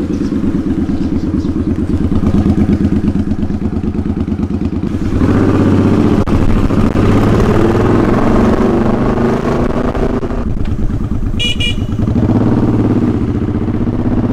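Motorcycle engine running while riding along a street, with a louder rushing noise joining about five seconds in. A brief horn beep sounds near the end.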